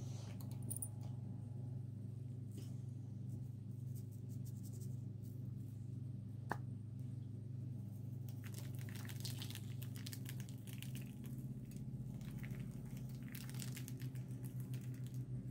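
Slime being mixed and squished by hand: scattered wet squishes and crackles, busiest a little past halfway and again near the end, over a steady low hum.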